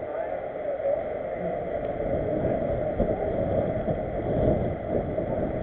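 Wind buffeting the microphone over the rolling noise of a mountain bike on a paved street: a steady hiss with low rumbling bumps that grow stronger about two seconds in.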